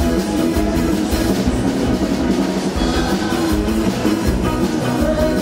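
Live band music: electric guitars and bass over a drum kit playing a steady beat.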